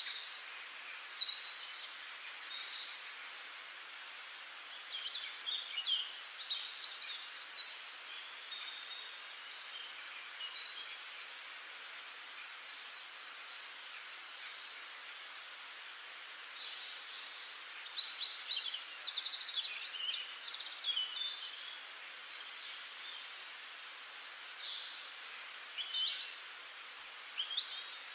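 Several small songbirds chirping and singing in short, varied phrases over a steady hiss.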